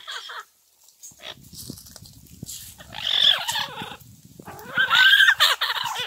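Yellow-headed Amazon parrots calling: harsh, wavering squawks, one about three seconds in and more, louder, from about four and a half seconds on.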